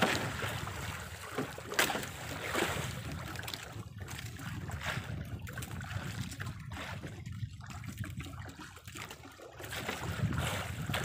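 Sea water sloshing and lapping against the hull of a small drifting boat, with wind rumbling on the microphone and a few brief splashy swishes.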